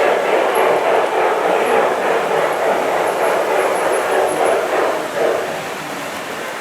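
LGB G-scale model train running on garden track, a steady rolling train noise that eases off a little near the end.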